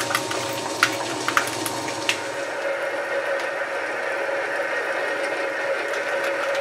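South Bend 11 metal lathe running steadily, spinning a square steel plate in its chuck while a drill bit is fed in from the tailstock to start a centre hole. A few sharp ticks come in the first two seconds, then the running sound holds steady.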